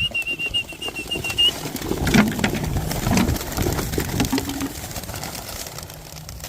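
Homing pigeons in their transport crate while it is handled for release, with knocks and rustling around the middle and a short low coo. A high whistle rises and is held for about a second and a half at the start.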